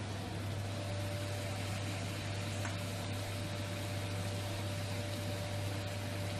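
Steady rushing roar of a restaurant gas wok range, with a low hum and a thin steady whine running through it.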